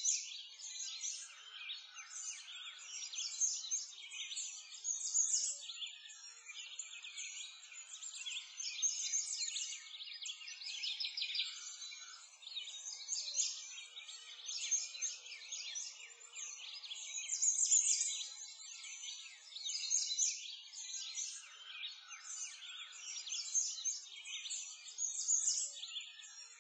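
A dense chorus of small songbirds chirping and twittering, many high-pitched calls overlapping continuously, with no low sounds underneath.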